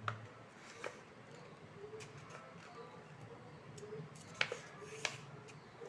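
Paper being worked by hand for a craft: a few sharp clicks and snips, the loudest about four and a half and five seconds in, over a faint low hum.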